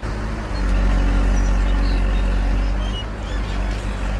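Engine of a quarry dredger running with a steady deep drone, with a few faint bird chirps above it.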